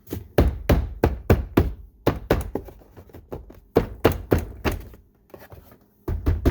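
Hand striking a Ford Fiesta's plastic interior door panel to snap its trim clips into the door: a rapid series of thunks, about three a second, with a short pause around five seconds in and a last couple of hits near the end.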